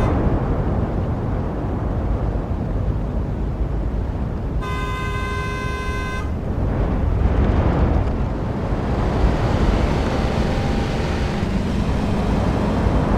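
Road traffic passing, a steady rumble of car engines and tyres, with a car horn sounding once for about a second and a half near the middle.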